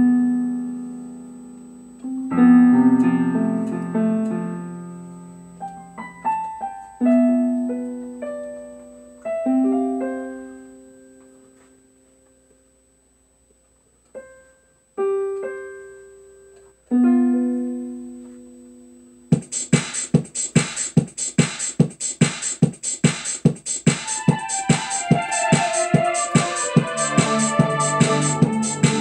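Keyboard music: sparse piano-like chords and single notes struck and left to ring out and fade, with a brief near-silent pause. Later, a fast, steady beat of sharp ticks comes in, about three a second, and more keyboard notes and chords build up over it.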